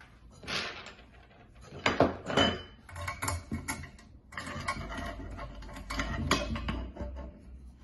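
Small metal parts (screws and an assembly tool) clinking and tapping against the steel frame of a flat-pack side table as it is put together: scattered light knocks, the sharpest about two seconds in, then a denser run of rattling and handling noise.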